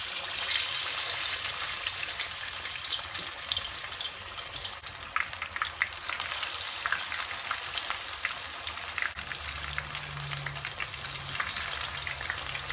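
Marinated, gram-flour-coated chicken pieces being lowered into hot oil in a frying pan, the oil sizzling with many small crackling pops. The sizzle is loudest as the first piece goes in and swells again about six seconds in as more pieces are added.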